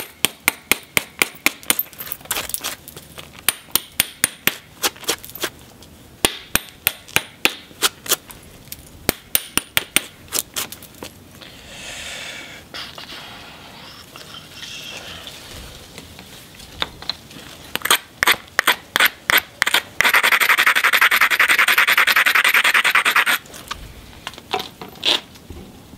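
Rapid light taps of a copper bopper on the edge of a piece of cherty mudstone, about four to five sharp clicks a second in long runs, with a pause in the middle. Near the end comes a few seconds of steady gritty scraping of stone, then a few last taps.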